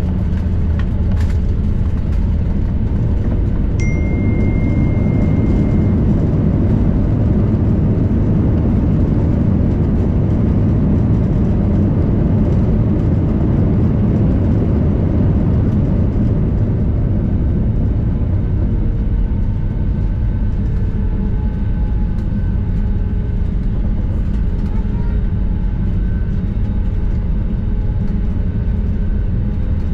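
Cabin noise of an Airbus A320 rolling on the ground after landing: a steady, loud rumble of engines and wheels. A brief high steady tone sounds about four seconds in.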